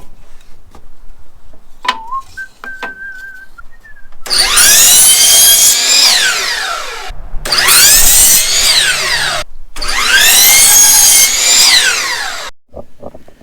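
Electric power saw run three times, cutting pieces of wood, each run two to three seconds long with a whine that climbs as it starts and falls away as it winds down, with short pauses between.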